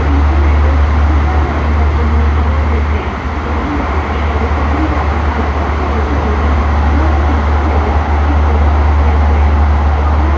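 LA Metro E Line light-rail train running between stations, heard from inside the car: a loud, steady low rumble of wheels on rail and traction motors.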